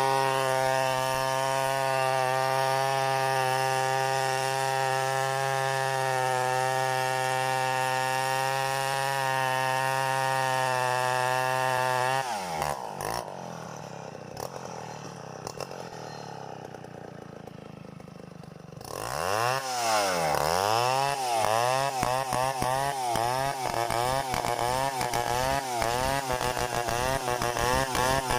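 Chainsaw engine running steadily at high revs, then dropping to idle for several seconds. It is then revved up and down in quick, repeated throttle blips that come faster near the end.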